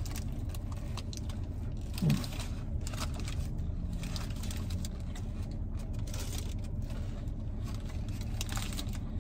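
Steady low rumble of a car idling, heard from inside the cabin, with faint chewing and rustling of a sandwich wrapper as a fried chicken sandwich is eaten. A brief closed-mouth 'mm' comes about two seconds in.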